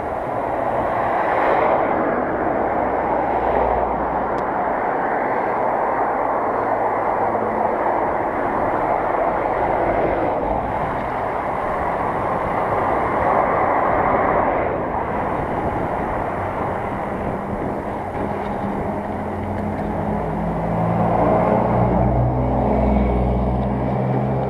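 Steady rushing noise of a bicycle being ridden along a path: wind on the microphone and tyres rolling, rising and falling a little, with a low hum joining near the end.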